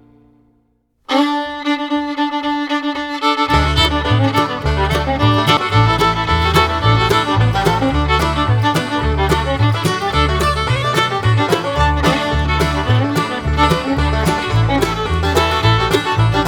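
Background music: a bluegrass-style fiddle tune that starts suddenly about a second in after a moment of silence, with a rhythmic bass line coming in a couple of seconds later.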